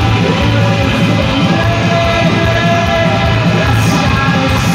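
Live rock band playing loud and steady, with a singing voice over a pulsing beat, heard from inside the festival crowd.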